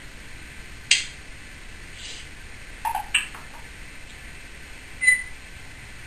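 Timneh African grey parrot making sharp clicking sounds. There is a single click about a second in, a short low note followed by quick clicks around three seconds in, and a brief, high, beep-like click near the end.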